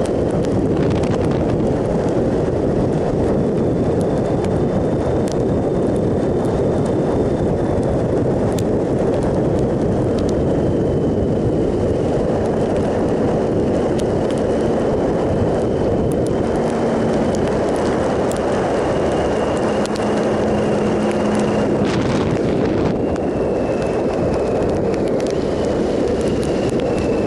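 Steady wind rush over the microphone mixed with the engine and road noise of a 2007 Triumph Sprint ST 1050, a three-cylinder sport-tourer, cruising at road speed on wet tarmac.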